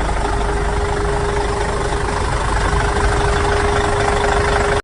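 Truck engine idling as an edited-in sound effect: a dense, steady rumble with a steady whine joining in near the start. It cuts off abruptly.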